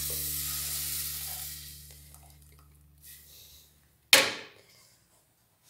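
Onion and flour frying in butter sizzle in a pot as the blended corn mixture is poured in, the sizzle dying away over the first few seconds as the liquid covers the pan. About four seconds in comes one short, loud rush of noise.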